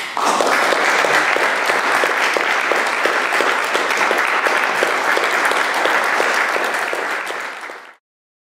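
Audience applauding: a dense patter of many hands clapping, holding steady and fading out near the end.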